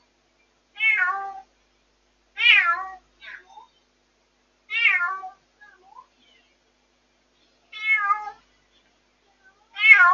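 A rescued white former stray cat meowing loudly and repeatedly, five long calls about two seconds apart, each falling in pitch, with a few short softer calls in between. This is the night crying of a newly rescued cat not yet settled as a house cat, picked up distorted by a pet-monitoring camera's microphone.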